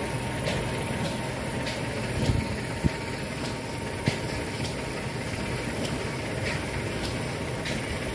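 Steady running of a paddy-field water pump motor, with water rushing through its concrete outlet channel and a faint constant whine. A few soft knocks come about two to four seconds in.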